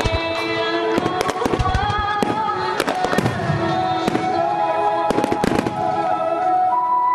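Fireworks display: rapid bangs and crackling bursts, many per second, over music with held notes.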